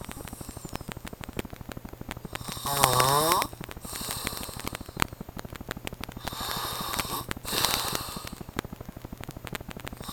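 A man snoring loudly in his sleep. About three seconds in there is a loud, pitched, rattling snore, followed by breathy airflow. Two softer, hissing snore breaths come around six to eight seconds in.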